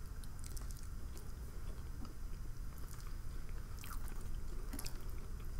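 Quiet chewing of a mouthful of food, with a couple of small mouth clicks about four and five seconds in.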